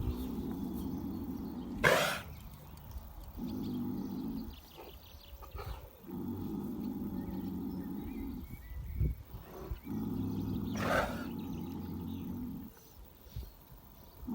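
Pony snoring in its sleep: repeated low, rumbling snores about one to three seconds long, with pauses between. Two louder, breathy blows of breath come about two seconds in and again near eleven seconds.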